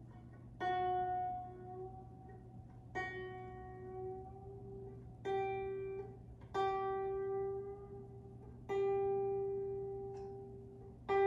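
A newly fitted grand piano string, on an 1874 Broadwood grand, plucked six times while its tuning pin is turned with a tuning lever; each note rings and fades, and the pitch creeps upward as the string is pulled up toward pitch.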